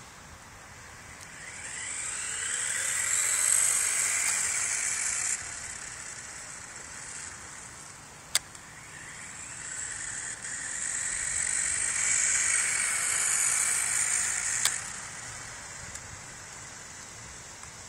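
Tyco Twin Turbo Aero Hopper radio-controlled car's electric motor whining as it drives on asphalt, in two runs. Each run starts with a rising whine and cuts off suddenly, the first about five seconds in and the second near fifteen seconds. A single sharp click comes between the runs.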